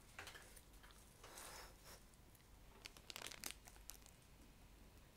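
Faint rustling and crinkling of packaging being handled, in a few brief spells, the clearest about a second and a half in and again around three seconds in, with near silence between.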